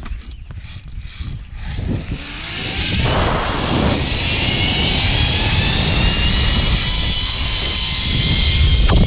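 Zipline trolley running along the steel cable: a high whine that grows louder over the first three seconds and then holds steady, over heavy wind rumble on the microphone.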